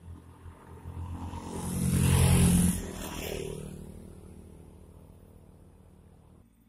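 Two small motorcycles approach and ride past close by. Their engine note builds to its loudest about two and a half seconds in, drops sharply as they pass, then fades away.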